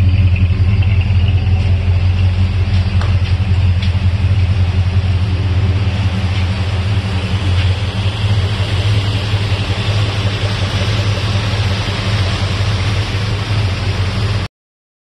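Chrysler 440 cubic-inch V8 with Lean Burn, newly swapped into a 1977 Dodge Royal Monaco Brougham wagon, running steadily with a deep, even hum. The sound cuts off abruptly near the end.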